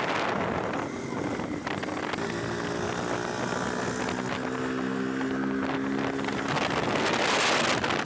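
Motorcycle on the move with wind rushing over the microphone, louder near the end; for a few seconds in the middle a short run of steady musical notes is heard over it.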